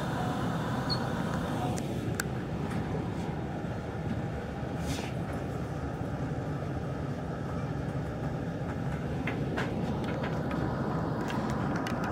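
Steady low rumble of a Hanshin 5500-series electric commuter train, heard inside behind the driver's cab, with a few light clicks.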